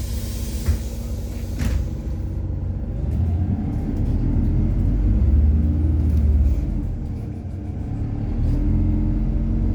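City bus with a methane (compressed natural gas) engine pulling away. A hiss of compressed air dies out about two seconds in. Then the engine's drone rises as the bus accelerates, drops back for a moment around seven seconds in, and climbs again.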